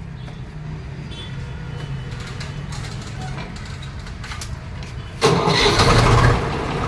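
Swaraj 735 FE tractor's diesel engine being started after it overheated and stalled: a low steady rumble of cranking, then about five seconds in it catches with a sudden loud burst and settles toward a running idle.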